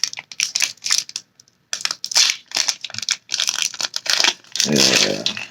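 Foil wrapper of a Pokémon card booster pack being torn open and crinkled by hand: a run of irregular crackles and rips, with a short pause about a second and a half in.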